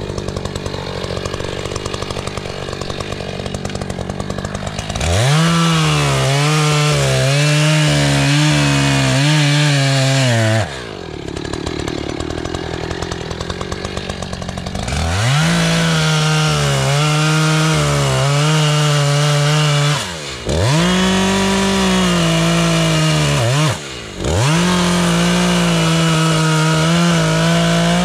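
ECHO CS-590 Timber Wolf two-stroke chainsaw idling, then revved to full throttle to cut through a felled log. It runs at full throttle four times, with the pitch wavering as the chain bites, and drops briefly back to idle between cuts.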